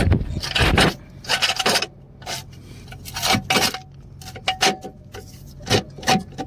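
Metal jack stands scraping and grinding on gravel as they are set in place under the car, in a series of short irregular scrapes with a faint metallic ring in some of them.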